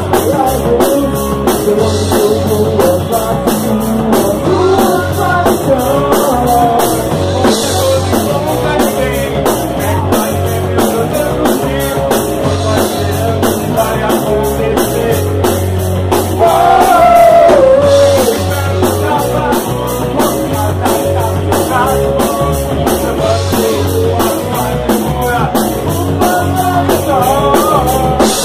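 A rock band playing a song on drum kit, electric guitar and bass, with a voice singing. The bass and drums keep a steady beat, and there is a louder stretch with a falling glide about two-thirds of the way through.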